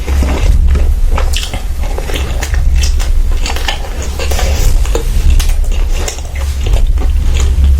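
Close-miked eating: chewing with frequent short clicks and clinks of utensils against a plate, over a steady low hum.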